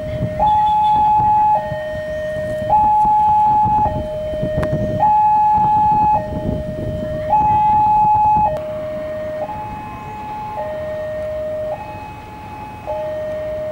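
Railway level-crossing warning siren: an electronic two-tone alarm alternating steadily between a higher and a lower tone, each held about a second, warning that a train is approaching. It gets quieter about eight and a half seconds in.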